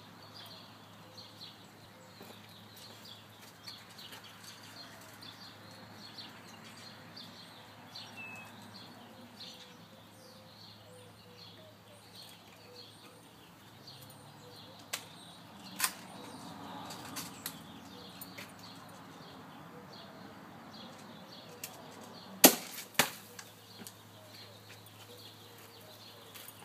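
BB gun firing at aluminum soda cans: a few sharp cracks over a faint background, two about a second apart midway and a louder pair close together about three quarters through.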